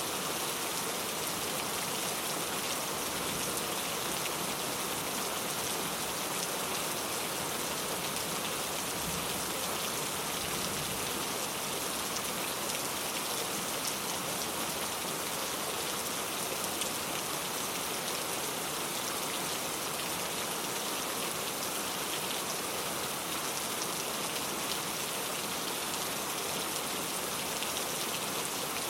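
Heavy rain falling steadily, a dense even hiss of drops with fine ticks of individual drops striking a surface.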